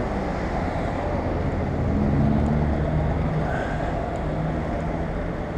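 Street traffic: a car engine close by over a steady rumble of road noise, swelling about two seconds in and easing off later.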